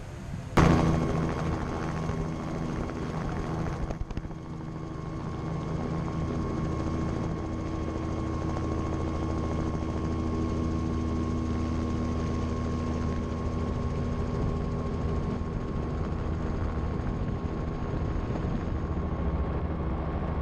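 Robinson R44 helicopter's six-cylinder Lycoming piston engine and rotor running steadily, with a thin steady whine. A single sharp thump about half a second in is the loudest sound. The sound grows a little louder from about five seconds in as the helicopter takes off and climbs.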